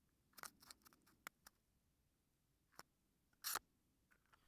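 Near silence broken by a few faint, scattered clicks and short rustles, the loudest a brief rustle about three and a half seconds in.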